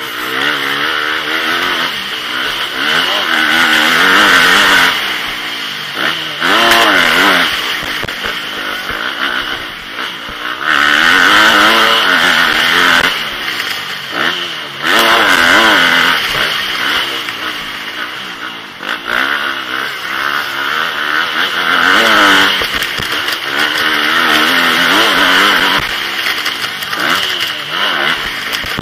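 Motocross bike engine heard from the rider's helmet during a race, repeatedly revving up hard and dropping off as the throttle opens and closes, over a constant rush of wind and track noise.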